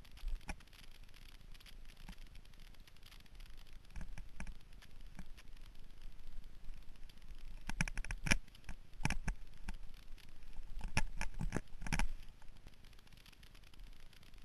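Mountain bike rolling fast over a bumpy dirt trail: irregular clicks, knocks and rattles from the bike and its handlebar camera mount, coming in thicker clusters about halfway through and again a little before the end.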